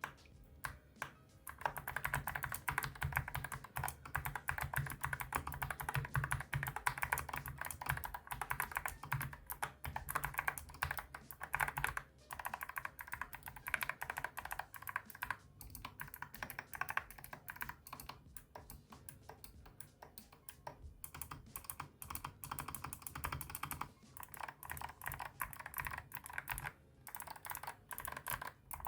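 Fast typing on a mechanical keyboard fitted with Gateron Melodic clicky switches and thick PBT keycaps: a dense run of sharp keystroke clicks, broken by a few short pauses. The switch's click plate sounds on the press, and the keys lose their click on release.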